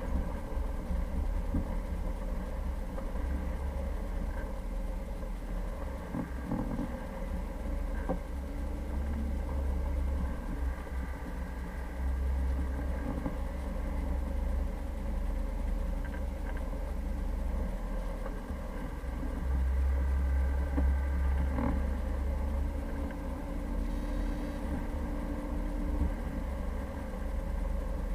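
Vehicle engine running steadily with a heavy low rumble, as from a Jeep Cherokee being driven, with a few light knocks.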